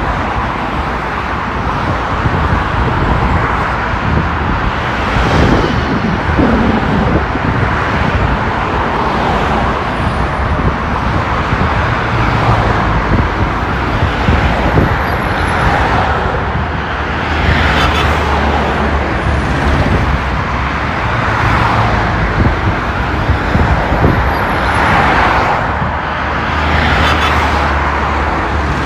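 Dense road traffic: a steady wash of car engine and tyre noise with a low rumble, swelling every few seconds as vehicles pass close by.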